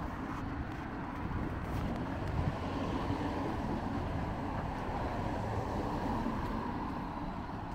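Road traffic: the steady rumble and hiss of cars going by on a road.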